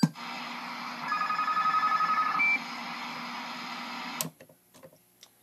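CB radio channel keyed up: a click, a hissy open carrier carrying a pulsing electronic tone for about a second and a half and a short higher beep, then a click as it drops out about four seconds in.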